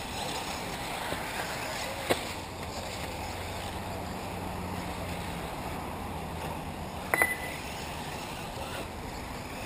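1/8-scale electric off-road RC buggies running on a dirt track: a steady noisy haze with a faint low hum in the middle. A click comes about two seconds in, and a short high beep about seven seconds in.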